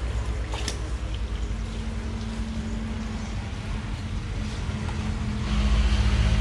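Fishing boat's engine running with a steady low hum, growing louder about five and a half seconds in. A single sharp click comes about two-thirds of a second in.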